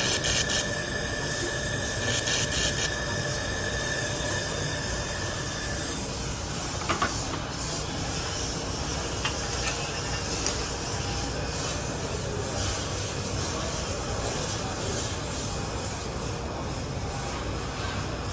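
IPG LightWELD XR handheld laser welder firing in two short bursts of rapid crackling pulses, one at the start and one about two seconds in, as it welds in pulse mode. A steady hiss runs underneath, with a thin steady tone that stops about six seconds in.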